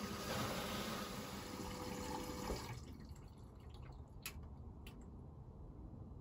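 Hoover VisionTech washing machine taking in water: a steady rush of water through the inlet valve, which drops away sharply after about two and a half seconds. Two short clicks follow.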